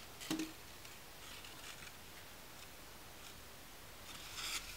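Quiet handling of a cardstock gift package on a craft mat: a soft tap about a third of a second in as it is set down, a few faint rustles, and a louder paper rustle near the end.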